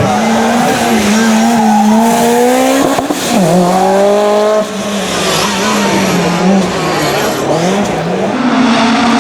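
Lancia Delta S4 Group B rally car's twincharged four-cylinder engine at full rally pace, revving up, dropping off sharply about a third of the way in and again about halfway, then pulling up again with the pitch wavering and climbing near the end, as the driver works the throttle and gears.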